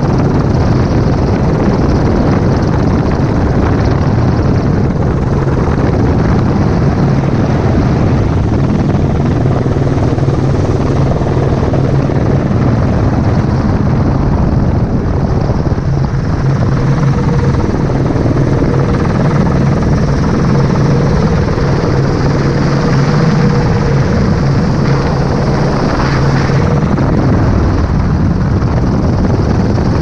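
Helicopter in flight, heard from inside the cabin: loud, steady rotor and engine drone.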